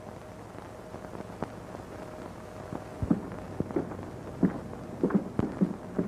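Irregular short knocks and taps, only a few at first, then several a second from about three seconds in, over a faint steady hum.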